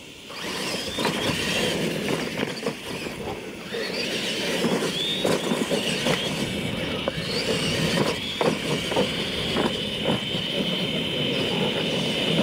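Two R/C monster trucks launching and racing over a dirt track. Their motors and gears give a high whine that starts about half a second in, and there are several knocks and clatters as the trucks hit and land off the ramps.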